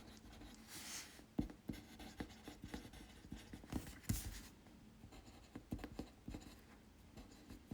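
Faint pencil writing on paper: short scratchy strokes with a few light taps between them.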